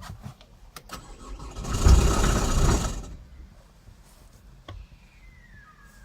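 A Chevrolet Cruze 1.7 diesel engine cranked by the starter for about a second and a half, turning over with a mechanical rattle and not catching. This is the no-start fault the owner puts down to a flywheel known to need replacement. A few sharp clicks come just before the cranking, and another comes after it.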